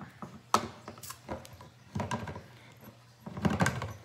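Hand-held can opener being worked on a can of black beans: irregular sharp clicks and metallic rattling, thickest near the end, from an opener that is hard to work.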